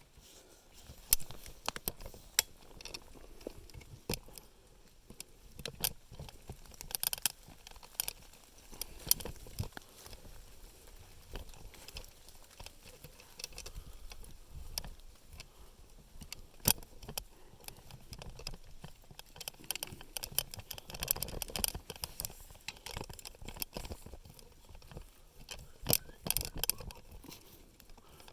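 Irregular crackling and clicking of branches and twigs being handled and trodden, coming in bunches, with no saw running.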